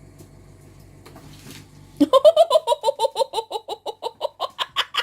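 A person laughing hard: a long run of quick, high 'ha-ha' pulses, about six a second, starting about two seconds in and slowly getting quieter.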